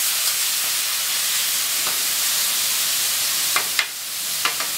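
Marinated carne asada sizzling steadily on a hot Blackstone steel griddle, with a few clicks of metal spatulas on the steel near the end.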